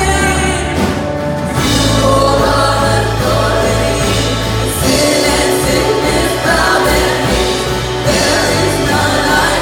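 Live contemporary worship song: a woman leads the singing with many voices joining in, over a band with sustained low bass notes.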